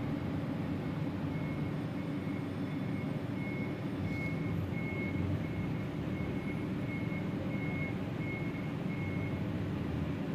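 Steady low mechanical rumble, with a faint high beep repeating about twice a second through most of it.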